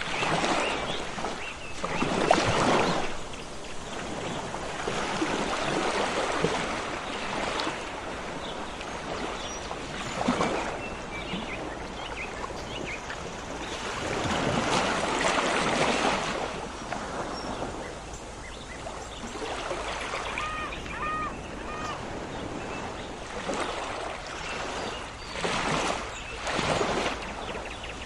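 Sea waves washing in and out on a shore, swelling every few seconds, with small birds chirping now and then; a bird gives three quick whistled notes a little past the middle.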